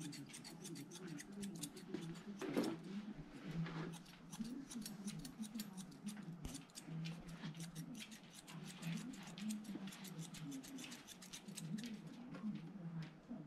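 Grooming scissors cutting a double-coated dog's hair in a steady run of quick snips, several a second.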